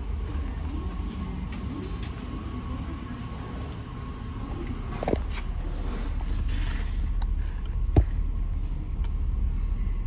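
2001 Chevy Tahoe's 5.3-litre V8 idling steadily, with two sharp knocks about five and eight seconds in.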